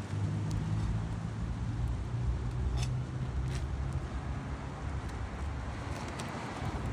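A steady low engine hum, with a few faint sharp clicks over it.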